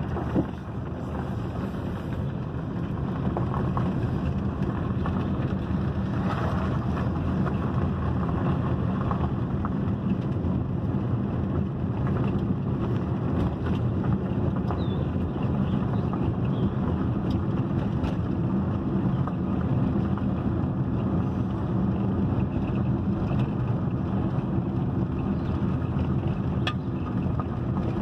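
Car cabin noise while driving along a wooded road: a steady low rumble of tyres and engine, with a few faint ticks.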